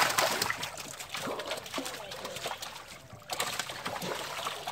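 Live kalbaush carp thrashing in the water in the bottom of a wooden boat, with irregular splashes and slaps, loudest at the start.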